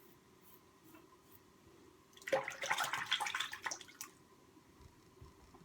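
Water splashing in a sink for nearly two seconds, a safety razor being rinsed mid-shave, between stretches of faint quiet.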